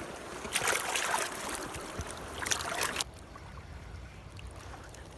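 Water splashing and sloshing close to the microphone, stopping sharply about three seconds in and leaving the steady rush of the river.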